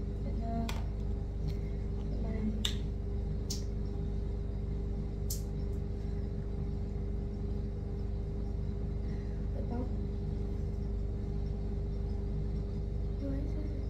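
Steady low drone of a bathroom exhaust fan running, with a constant hum. Over it come a few sharp clicks in the first six seconds as small objects are handled.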